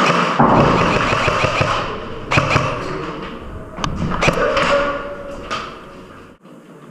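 Several sharp knocks and thuds over a rumbling, noisy background that cuts off suddenly near the end.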